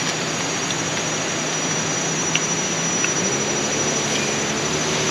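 Steady rush of river water, an even hiss that does not change.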